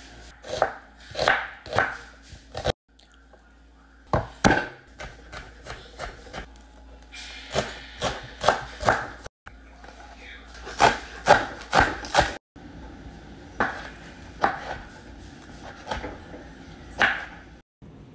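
Kitchen knife chopping onion and green onions on a bamboo cutting board. Sharp knocks of the blade on the board come in short quick runs, broken by several brief dead-silent gaps.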